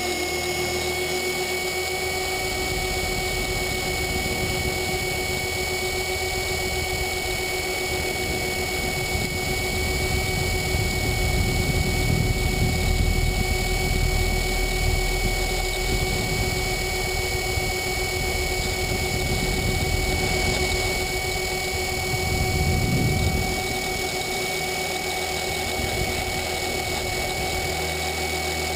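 Align T-Rex 500 electric RC helicopter in flight: a steady whine from the motor and rotor drive holding one pitch, over a low rumble that swells for a few seconds in the middle and again about three quarters of the way through.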